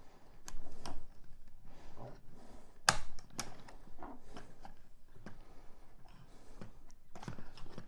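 Plastic action-figure robot horse being handled and posed: scattered clicks of its leg joints and plastic knocking and rubbing, with the sharpest click about three seconds in.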